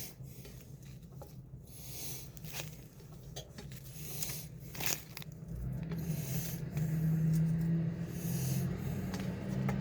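Kitchen handling noises from preparing onions: scattered scrapes and light taps. A low steady hum comes in about halfway through.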